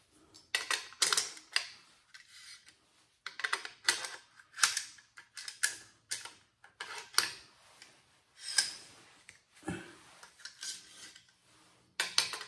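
Irregular metallic clicks, scrapes and rattles as an AR-15 bolt carrier group is slid into the upper receiver, with the charging handle already fitted.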